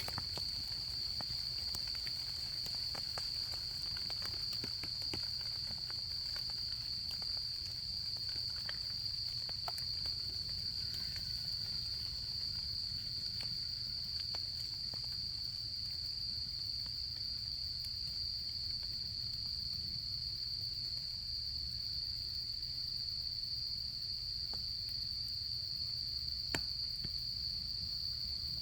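Autumn crickets singing in a steady, unbroken high-pitched trill, with a campfire crackling faintly now and then and one sharper pop near the end.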